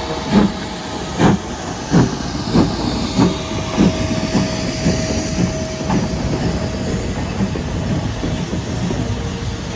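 Southern Railway U class 2-6-0 steam locomotive No. 31806 getting under way: sharp exhaust chuffs that come steadily faster over the first six seconds, over the hiss of steam from its open cylinder drain cocks. The beats then fade into a steady rumble of the engine and tender rolling past on the rails.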